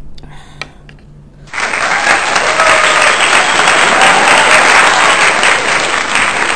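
Stock applause sound effect: a crowd clapping, starting suddenly about a second and a half in and cutting off abruptly at the end. Before it, faint scraping of a wooden spoon stirring food in a skillet.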